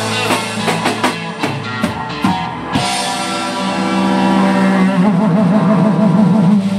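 Live rock band: distorted electric guitars and a drum kit playing loud. The drum hits stop about three seconds in, and the guitars ring on in held notes, one of them wavering in pitch.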